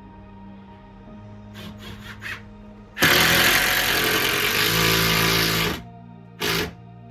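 Power drill driving self-drilling Torx-head screws: a few quick trigger blips, then one run of nearly three seconds starting about three seconds in, and a short blip near the end.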